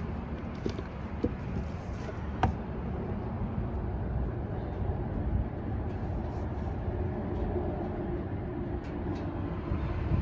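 Class C motorhome being driven: a steady low road-and-engine rumble, with a few sharp clicks in the first three seconds.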